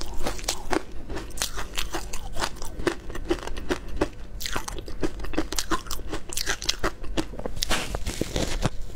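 Close-miked crunching of frozen matcha-coated shaved-ice balls being bitten and chewed: a quick, irregular run of sharp crunches that keeps on throughout.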